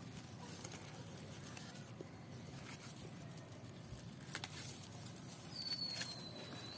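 Faint rustling of soil and roots with a few soft clicks as a fern offshoot is pulled loose from its pot. Near the end, a thin whistle falling slightly in pitch lasts a little over a second.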